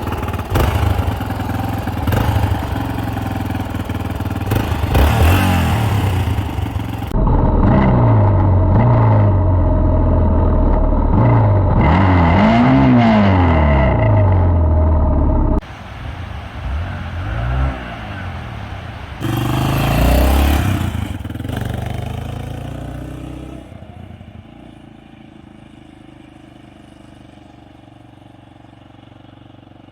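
Yamaha XT 600 single-cylinder four-stroke motorcycle engine, heard in a series of short clips that cut abruptly. The throttle is blipped so the revs rise and fall repeatedly, and near the end the engine settles into a quieter steady idle. This is an exhaust sound comparison with and without the dB-killer baffle fitted.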